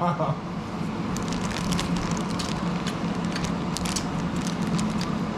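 Watermelon being chewed close to the microphone: irregular crisp crackles and crunches over a steady low hum.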